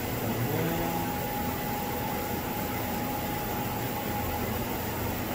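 Steady fan-like hiss and hum of running lab electronics, with a faint steady high whine that starts about half a second in.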